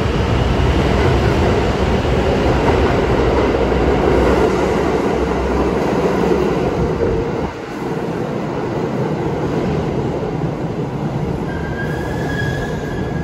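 New York City subway train running with a loud, dense rumble that drops off about halfway through. A steady high-pitched wheel squeal sets in near the end.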